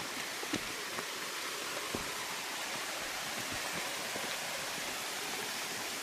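Steady rushing of a waterfall and creek, with a few faint footsteps on rock in the first couple of seconds.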